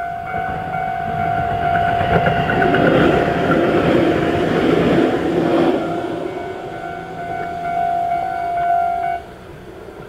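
Tobu-type level-crossing warning bell ringing steadily while a Tobu 800 series local electric train runs over the crossing, the train noise loudest in the middle. The bell cuts off suddenly about nine seconds in as the crossing clears.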